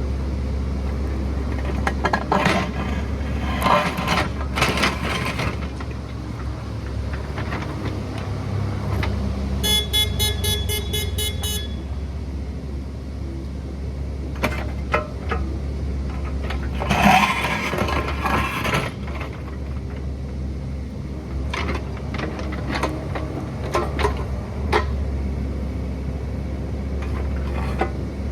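Excavator diesel engine running steadily under scattered sharp clanks and scrapes of the machine at work. About ten seconds in, a rapid pitched beeping alarm sounds for about two seconds.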